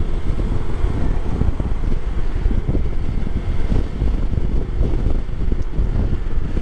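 Steady wind rush buffeting the microphone on a moving Honda PCX125 scooter, with the scooter's running noise underneath as a low rumble.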